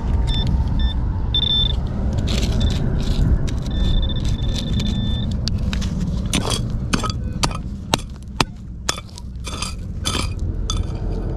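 Small pick-style digging tool chopping and scraping into rocky gravel, with a run of sharp clicks and knocks of metal on stone in the second half. Intermittent high electronic beeps from the metal-detecting gear sound on and off in the first half, over a steady low rumble.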